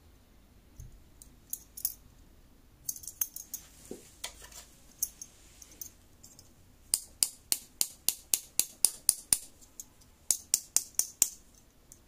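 Snap-off utility knife blade scraped in quick strokes across the edge of a heat-treated belt buckle hardened to HRC 58–59: short, sharp scratching strokes in bursts, about four a second in the longest run. The blade skids over the metal without biting in, a hardness test.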